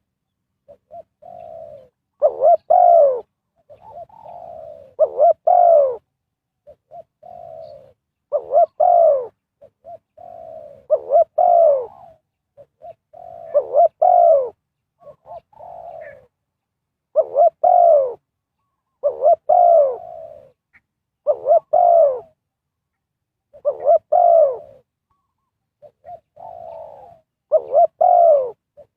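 Spotted dove cooing over and over: a loud cooing phrase about every two to three seconds, with fainter coos in between.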